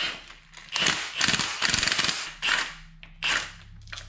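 Cordless impact wrench hammering in several bursts, the longest about a second and a half, as it turns the threaded rod of a strut spring compressor to uncompress a coil spring.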